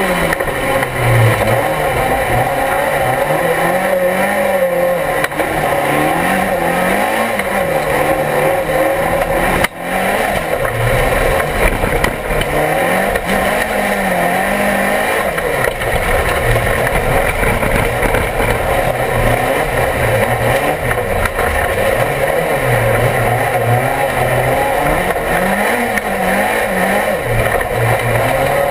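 Rallycross race car's engine heard from inside the cockpit under race load, its pitch rising and falling over and over as it accelerates, shifts and slows through the corners. There is a steady rush of road and tyre noise, and a brief sharp drop about ten seconds in.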